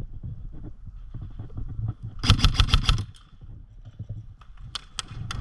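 Airsoft gun firing a rapid full-auto burst of about ten shots lasting under a second, followed near the end by a few separate sharp snaps of single shots, over low rumbling handling and movement noise.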